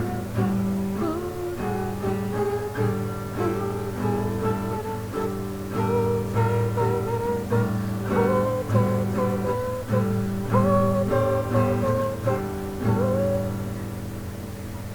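Background music with a bass line and a wavering melody, getting quieter near the end.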